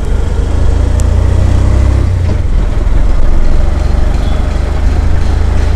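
Auto-rickshaw running along the road, heard from inside its open cabin: a steady, heavy low engine and road rumble.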